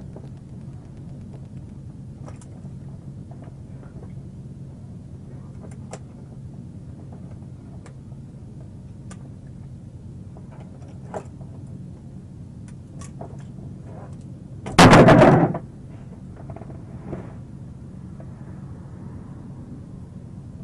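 A steady low hum with scattered faint clicks, and about fifteen seconds in a single loud bang lasting under a second.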